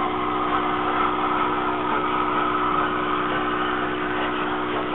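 Rebuilt Bulleid Pacific steam locomotive No. 34028 'Eddystone' drifting slowly past with a steady hiss of steam and no distinct exhaust beats.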